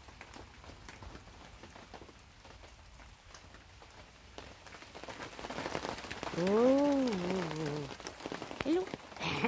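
Rain pattering down steadily, growing louder from about five seconds in. Over it, at about six and a half seconds in, a man gives a drawn-out wordless 'ooh' that rises and falls in pitch, followed by a short second sound near the end.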